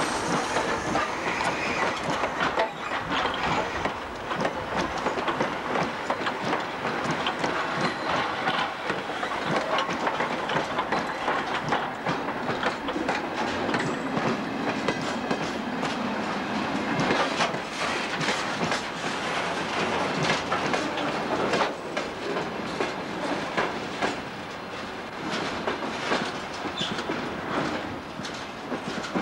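Freight train rolling past close by, its wheels clacking over rail joints with a steady run of clicks and clanks as the wagons rattle; the train carries towed L-series steam locomotives. The sound eases off a little near the end.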